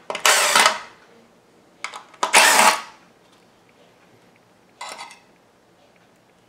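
DeWalt cordless drill/driver run in short bursts to back out case screws: three bursts under a second each, the last one quieter.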